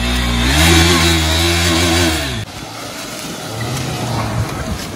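Off-road motorcycle engine revving hard through mud, its pitch climbing, holding, then falling away, until it cuts off abruptly about two and a half seconds in. A quieter, lower engine sound follows.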